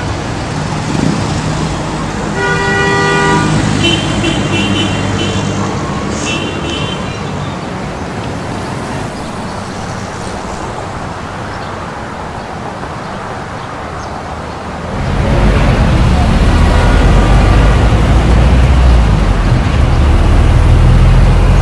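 Street traffic noise with a vehicle horn honking about two and a half seconds in, followed by shorter, higher horn toots twice more. About fifteen seconds in it changes abruptly to the loud, steady low rumble of a moving jeepney's engine heard from inside the passenger cabin.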